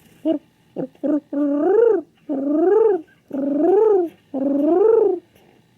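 King pigeon cooing: three short notes, then four long coos in a row, each rising and then falling in pitch.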